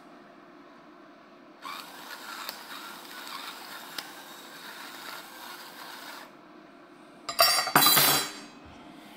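Battery-powered electric pepper mill grinding black peppercorns for about four and a half seconds, a steady crackly grinding. About a second later comes a louder, short clatter of the metal mill knocking down onto a wooden table.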